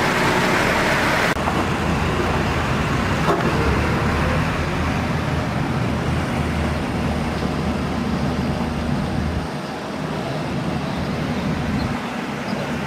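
Excavator's diesel engine running steadily with a low hum. A brighter hiss drops away a little over a second in.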